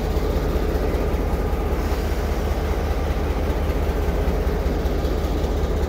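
A train's diesel engine idling with a steady, loud low rumble.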